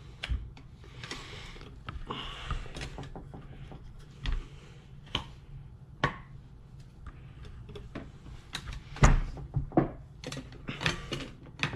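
Small clicks, taps and rustling of hands working screws and clips out of the back of a steering wheel, with a heavier knock about nine seconds in.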